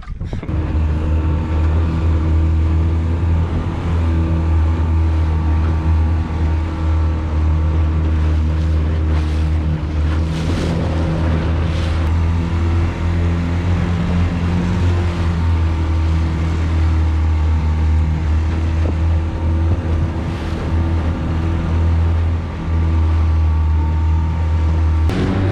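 A small aluminium boat's outboard motor running at a steady speed, with wind and water noise over it. The engine note eases briefly near the end.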